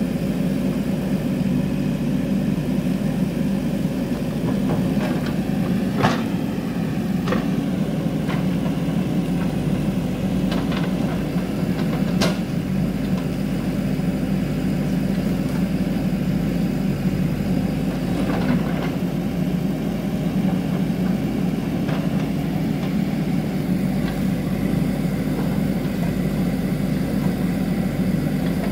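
JCB 3DX backhoe loader's diesel engine running steadily while the backhoe bucket works rock slabs, with a few sharp knocks of steel bucket on stone, the sharpest about twelve seconds in.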